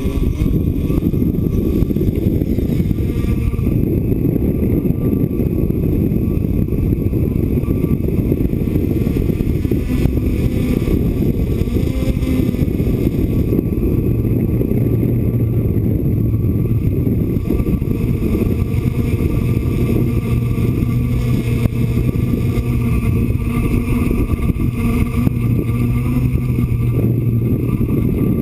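DJI F550 hexacopter's electric motors and propellers running, heard from a camera fixed to the aircraft's frame, under heavy low rumbling wind buffeting. A steady hum settles in about ten seconds in as it climbs.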